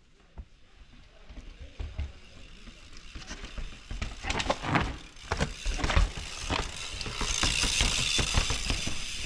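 A mountain bike coming down over the rocks of a rock garden: a run of clicks, knocks and rattles from tyres and bike hitting stone, growing denser and louder from about four seconds in. From about seven seconds in a steady hiss joins it.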